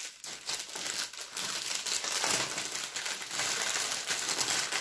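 Clear plastic bags crinkling continuously as hands handle a bag of small sachets of diamond-painting rhinestones.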